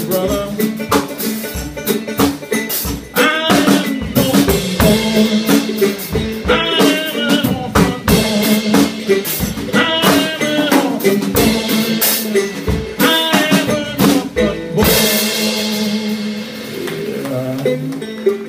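Old-timey band music: a cigar box guitar played with a drum kit, the drums keeping a steady beat, with a cymbal wash about fifteen seconds in.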